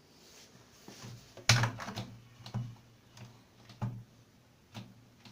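A series of irregular knocks and clicks from hands handling a washing machine, about seven in all, the loudest about a second and a half in.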